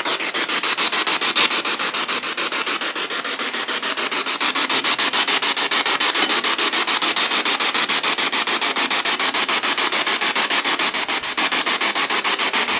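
Spirit box radio scanner sweeping through stations, heard through a small JBL portable speaker: a steady hiss of radio static chopped into rapid, even pulses. A single sharp click about a second and a half in.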